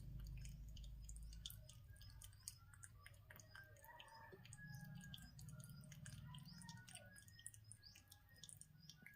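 Rabbit chewing rice and lentils: rapid, faint, crisp clicks of its teeth working the food. Birds chirp faintly in the background.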